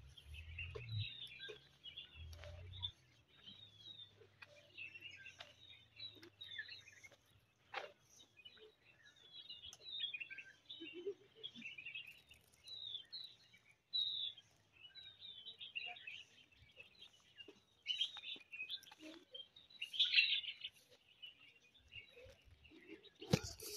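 Small songbirds chirping and twittering in quick, overlapping short calls, with a few light clicks in between and a cluster of louder knocks near the end.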